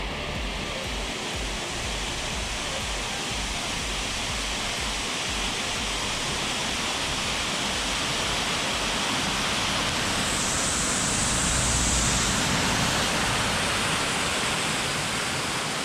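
Steady rush of a small waterfall splashing down a rock face, swelling a little louder about two-thirds of the way through.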